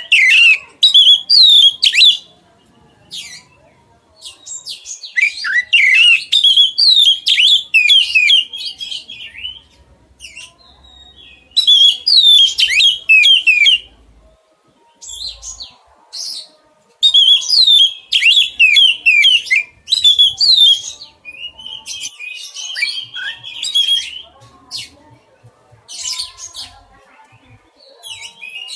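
Oriental magpie-robin (kacer) singing in full voice: bursts of rapid, varied whistled notes that sweep up and down, in phrases of one to three seconds separated by short pauses.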